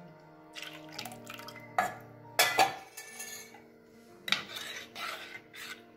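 Scattered clinks and scrapes against an aluminium pressure cooker pot as buttermilk is poured into puréed greens, over soft background music.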